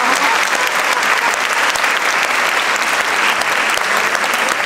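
Concert audience applauding steadily, a dense, even clatter of many hands clapping.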